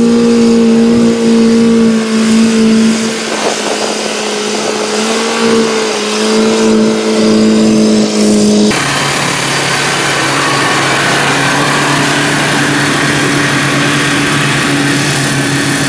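Small engine of a tracked rice-field carrier running steadily at high revs while hauling a load of rice sacks across the paddy. About nine seconds in, the sound cuts to another such machine running at a lower pitch.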